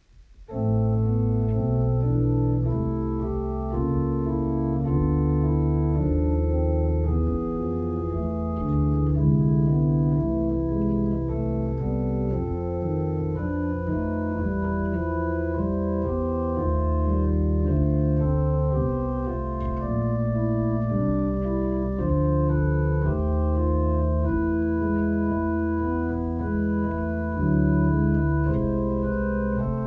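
Organ music: slow chords over long held bass notes, starting about half a second in.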